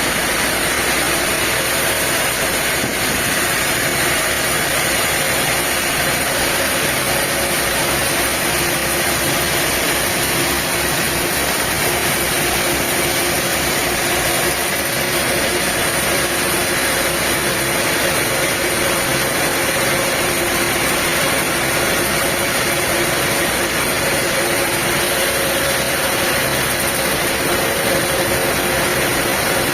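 Diesel engine running steadily at a constant speed, with an even mechanical hiss over it.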